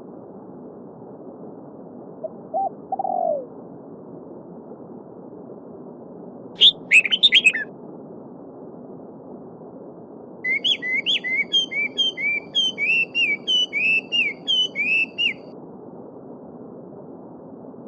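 Songbirds calling over a steady babbling stream: a short low call about three seconds in, a brief burst of high chirps near seven seconds, then a long run of quick repeated notes that stops about two seconds before the end.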